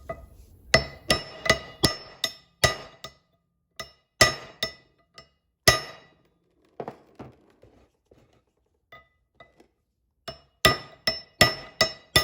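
Hammer blows on steel parts of the axle shaft, each ringing with the same clear metallic tone. A quick run of strikes comes in the first three seconds, a few single blows follow mid-way, and another quick run comes near the end.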